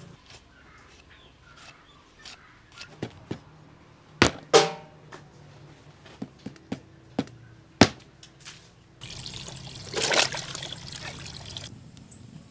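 Knife and curved cleaver cutting and chopping into a skinned cow head: a string of sharp chops and knocks, the loudest about four and eight seconds in. About nine seconds in comes a couple of seconds of pouring water.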